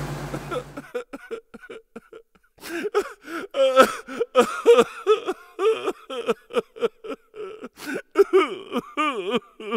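Helicopter cabin drone dying away within the first second, followed by a run of short, high-pitched, wordless vocal sounds with sliding, wavering pitch.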